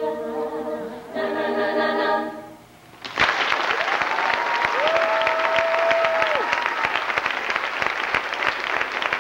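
Women's a cappella choir holding a final chord that fades out, followed about three seconds in by loud audience applause with cheering.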